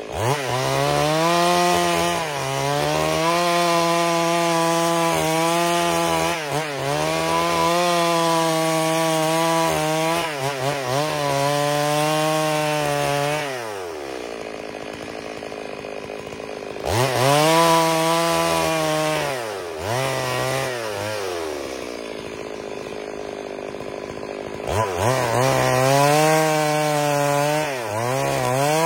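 Chainsaw running at full throttle, ripping lengthwise along a log, its pitch wavering under load. It drops back to idle twice for a few seconds, about halfway and again past two-thirds of the way through, and revs back up each time.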